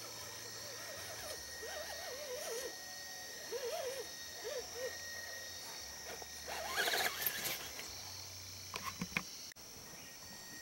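Electric RC rock crawler driven in short throttle bursts, its motor whine rising and falling, then a louder scraping of tyres on stone as it climbs about seven seconds in, and a few sharp knocks near nine seconds.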